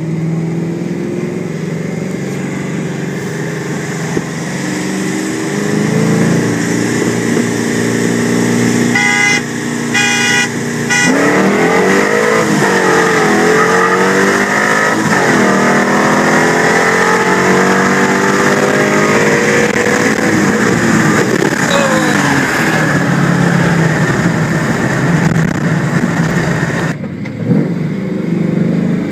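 Pontiac GTO V8 heard from inside the cabin: it cruises steadily, then a horn sounds three short times as the start signal. About eleven seconds in, the engine goes to full throttle with a 3-2 kickdown, and the revs climb hard and drop back at each upshift as the car pulls alongside a Corvette.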